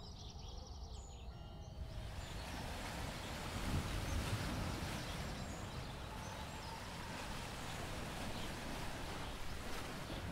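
A few birds chirping briefly at the start, then a steady rush of sea surf breaking on a rocky shore that swells a little a few seconds in.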